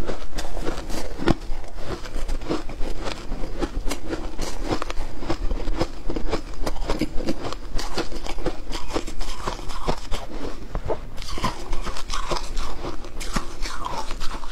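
Shaved ice crunching as it is bitten and chewed, with a metal spoon scooping through the ice in a glass bowl: many quick, crisp crunches in a steady run.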